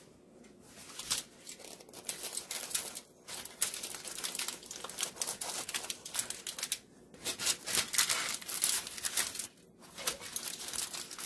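Dense, irregular crackling from a freshly baked puff-pastry Wellington resting on crumpled aluminium foil, with short pauses about three, seven and ten seconds in.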